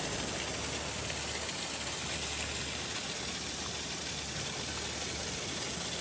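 Steady, even rush of water from a waterfall.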